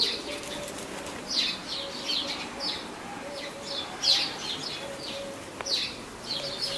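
Small birds chirping, many short high calls scattered throughout, with a faint low intermittent call underneath.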